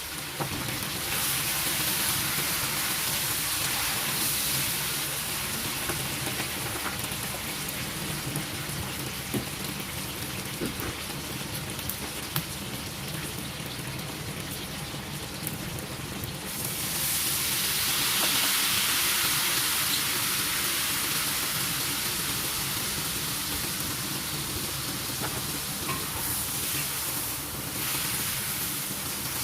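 Chicken adobo sizzling in a pan: a steady hiss with small scattered pops, swelling louder about a second in and again around two-thirds of the way through.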